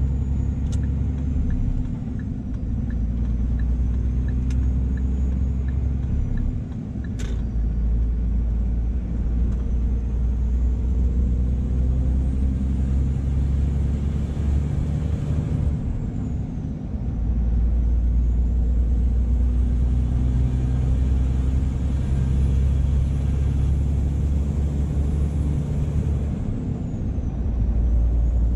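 Scania R480 truck's diesel engine running steadily under load with road noise, heard from the cab. For the first few seconds a turn indicator ticks about three times a second, and there is a sharp click about seven seconds in. The engine drone drops out briefly twice, around seven and sixteen seconds in, as the truck changes gear.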